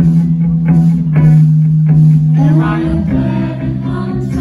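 Rock band playing live, heard from the audience: electric guitars strummed over long held bass notes that change every second or two, with drums.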